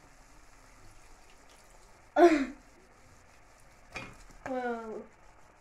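A child's short wordless vocal sounds: a loud one with falling pitch about two seconds in, and a drawn-out falling one just after four seconds. Between them, a single soft knock as chopped tomato is tipped into a glass bowl of minced meat.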